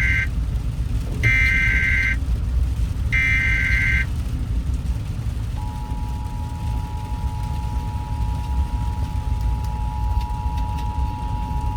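Emergency Alert System tones: the end of one screeching SAME data burst and then two more, each about a second long, followed about a second and a half later by the steady two-tone EAS attention signal, which begins about halfway through and holds. A low steady rumble runs underneath.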